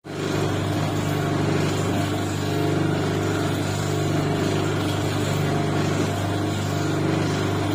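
Electric motor and drive of a dodol stirring machine running steadily, turning the paddle through thick dodol in a wok, with an even, constant hum.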